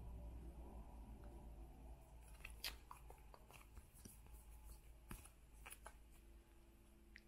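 Near silence with faint, scattered light clicks and rustles of photocards being handled and shuffled, over a low room hum.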